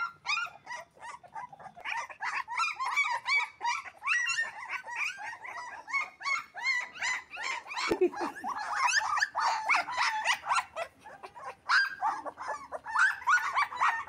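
A litter of young puppies whimpering and squeaking: a quick, unbroken string of short high cries from several pups at once, overlapping.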